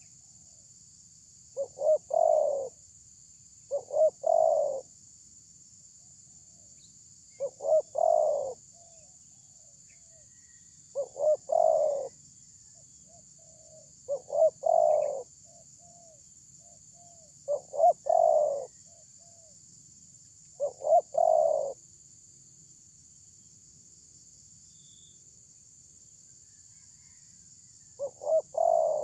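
Spotted dove cooing: a phrase of two or three short notes then a longer coo, repeated about every three to four seconds, with a pause of several seconds near the end.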